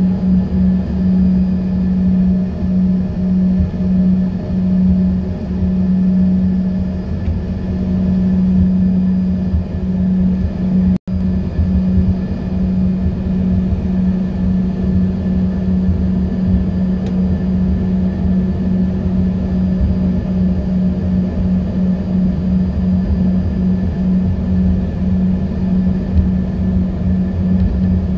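Steady drone inside the cabin of an Embraer E145 with its rear-mounted Rolls-Royce AE3007 turbofans running on the ground before takeoff. A strong, slightly pulsing hum sits over a low rumble. The sound drops out for a split second about eleven seconds in.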